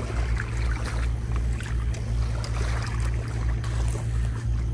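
A steady low rumble under a soft, even wash of noise and a few faint ticks, with no voices.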